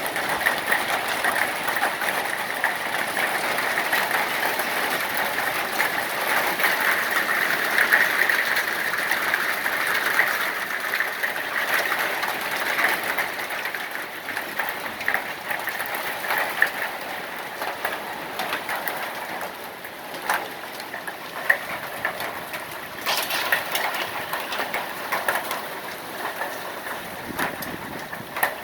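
Hail pelting down: a dense, steady clatter of countless small impacts. It thins out over the second half, with more separate, sharper hits standing out.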